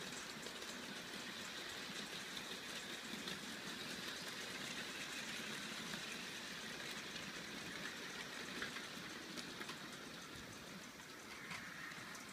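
A long rake of OO-gauge model goods wagons rolling past on metal track: a steady rattling hiss of many small wheels with fine clicks, easing off near the end as the last wagons pass.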